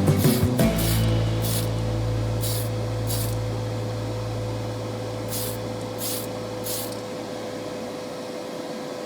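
Short spray-paint hisses, about six of them, spaced a second or so apart over a steady low hum.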